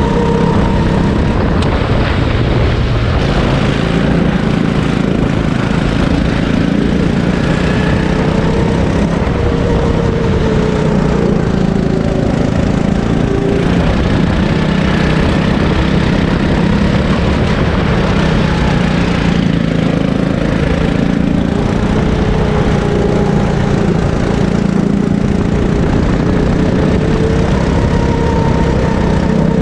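Sodi rental kart engine running hard, heard from the driver's seat, its pitch dropping and climbing again several times as the throttle is lifted and reapplied through the corners.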